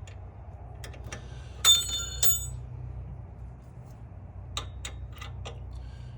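Metal hand tools clinking on metal: a sharp clink that rings briefly about a second and a half in, a second clink just after, then a few light clicks near the end, over a steady low hum.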